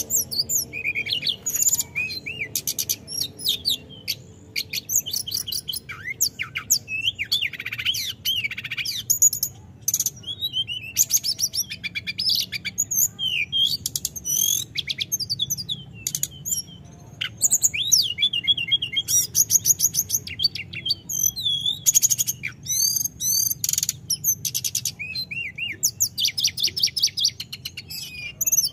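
Hill blue flycatcher singing a long, near-continuous run of rapid, varied whistles, trills and up-and-down pitch glides, with only short breaks. This is the full, rolling song that bird keepers call "gacor ngerol".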